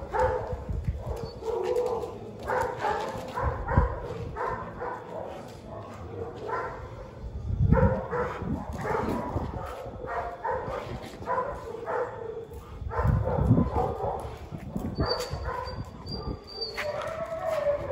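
A dog barking repeatedly in short barks, with louder barks around a quarter, half and three quarters of the way through.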